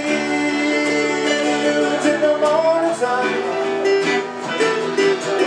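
Live acoustic country music: two acoustic guitars strummed and picked over an electric keyboard, with a man's voice singing long held notes.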